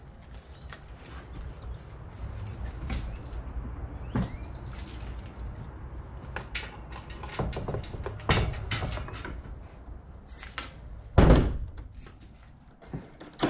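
Small metal objects jangling and clicking as they are handled, with scattered knocks and one louder thump about eleven seconds in.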